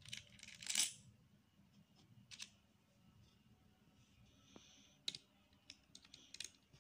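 Plastic Lego bricks clicking and clattering as pieces are handled and pressed onto the model: a loud clatter just before a second in, then scattered sharp clicks, with several in quick succession near the end.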